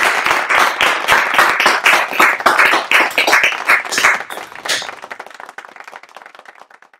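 Audience applauding. The clapping is dense at first, then thins and fades out over the last couple of seconds.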